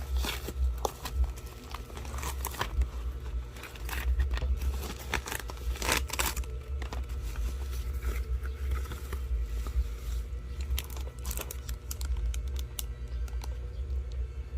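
Parcel packaging being handled, torn and crinkled open by hand: irregular crackling and tearing, with a steady low hum underneath.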